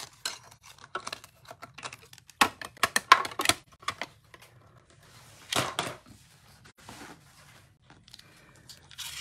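Clear plastic cutting plates and a metal square die from a Stampin' Up! Mini Cut & Emboss machine clacking and clicking as the die-cut sandwich is pulled out and taken apart, with a quick cluster of sharp clacks a few seconds in and a short scrape a little past halfway.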